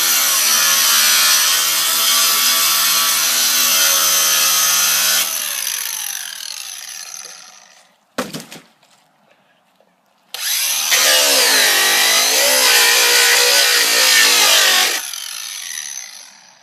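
Angle grinder running at full speed for about five seconds, then spinning down after the trigger is let go. After a short knock it runs again for about five seconds, its pitch wavering as the disc cuts into a plastic water bottle, and spins down again.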